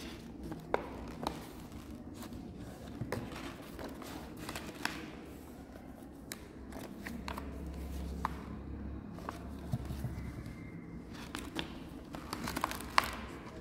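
Paper and card rustling and crinkling as folded paper flaps are opened and pages of a handmade project file are turned. Sharp little clicks and snaps of the paper are scattered through it, clustered near the end as a page turns.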